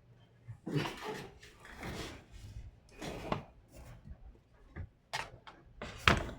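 Laptop parts being handled during assembly: irregular clatter, rubbing and clicks of plastic casing and components, with a sharp click near the end.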